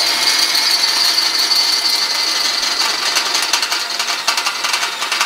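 Cordless drill boring through stainless steel sheet with an HSS twist bit: a steady high whine of the bit cutting. A rattling chatter joins in about halfway through.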